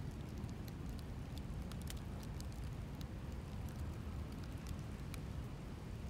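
Ambient soundscape: a low, steady rumble with faint, scattered crackles and ticks over it.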